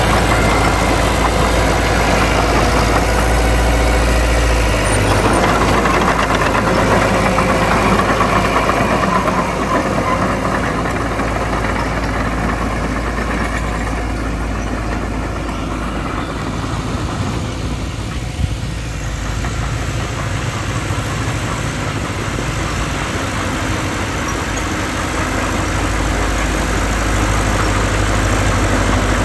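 Diesel engine of heavy earthmoving equipment running steadily. It eases off somewhat through the middle and grows louder again near the end.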